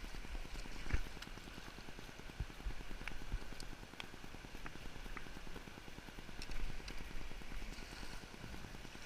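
River water rushing around a small boat in the current, with scattered light knocks and taps against the hull.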